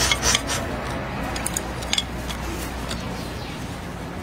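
Slurping from a glazed bowl with chopsticks scraping it, loudest in the first half-second, followed by a few sharp clicks of the chopsticks against the bowl about two seconds in.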